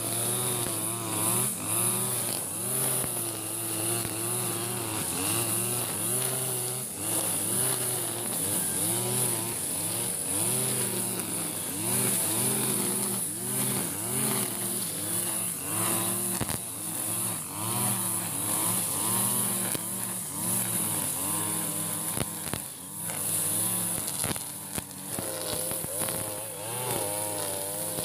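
Husqvarna 542RBS backpack brush cutter's 42cc two-stroke engine running at high speed while cutting thick cogon grass. Its pitch keeps dipping and rising as the cutting head swings through the grass and takes the load.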